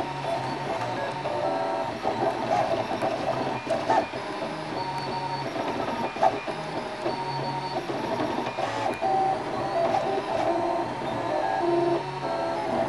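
Ultimaker Original 3D printer running a print: its stepper motors whine in short steady tones that change pitch with every move of the print head, with a few light ticks.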